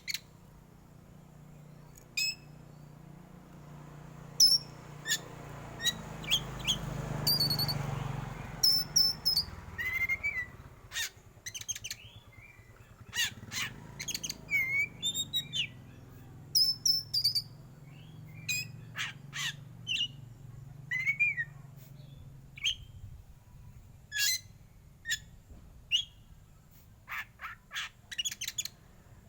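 Black Oriental magpie-robin (kacer hitam) singing in the style bird keepers call 'batuk': a long run of short, sharp chips and quick slurred whistles, closely spaced with brief gaps. A swell of rushing noise comes and goes about a quarter of the way in, under a steady low hum.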